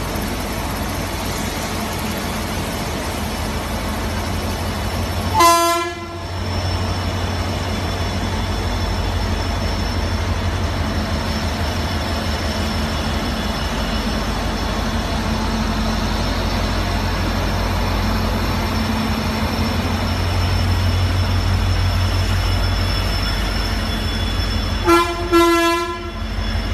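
WDP-4 class diesel locomotive running with a steady low engine rumble as it moves through the station. Its horn sounds in one short blast about five seconds in and twice more, briefly, near the end.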